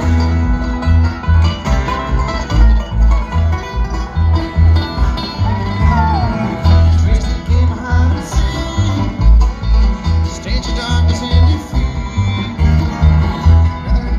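Bluegrass band playing live and amplified through large stage speakers: banjo and guitar picking over a pulsing bass line.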